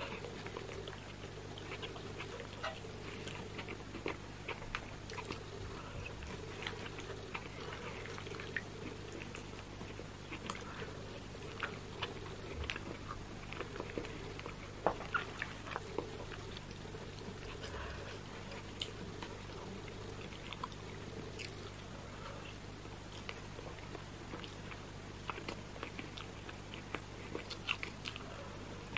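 Close-miked chewing and wet mouth sounds of someone eating roast chicken, with many small clicks and smacks, over a steady low hum.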